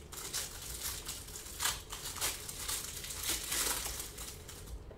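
Plastic wrapper of a trading-card pack crinkling as it is torn open and pulled off by hand: a string of irregular, crackly rustles.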